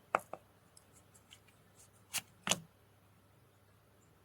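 Tarot cards being handled: a few light clicks and snaps as cards are flipped over and laid down, two just after the start and a louder pair a little past two seconds in.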